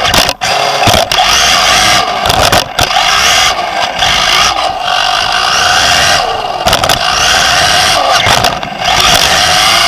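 Onboard sound of a Team Associated B5M 2WD electric RC buggy racing on dirt: the Nosram Comet HD motor and drivetrain whine rises and falls with the throttle, over a steady scraping hiss from the tyres. The hiss cuts out briefly several times, and there are a few sharp knocks from landings and bumps.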